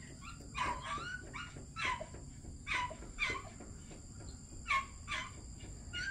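Coatimundi giving a series of short, high chirps, some sliding in pitch, in loose clusters of two or three.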